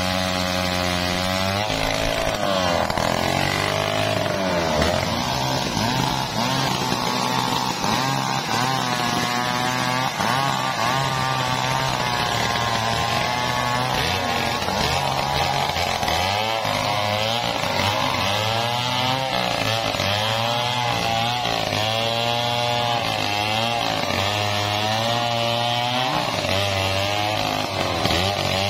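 Two-stroke Stihl chainsaws, an 070 and an MS 381, running at full throttle while cutting through a mahogany trunk, two saws at once for much of the time. The engine pitch keeps wavering up and down as the chains bog in the wood and pick up again.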